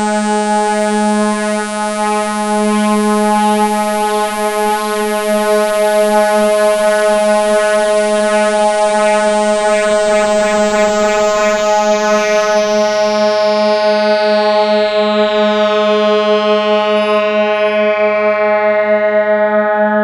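Modular synthesizer drone held on one low note near 210 Hz, buzzy and rich in overtones, wavering slightly because one oscillator drifts off its tuning. Over the second half the sound grows duller as its bright upper overtones fade away.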